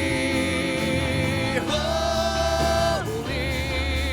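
Live gospel worship song: voices hold long sung notes over instrumental accompaniment, with a wavering vibrato on the last note.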